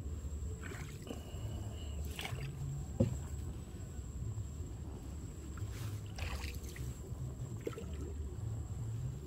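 Wooden rowboat being paddled along calm water: low swishing and trickling of water with each stroke, and a single sharp knock about three seconds in.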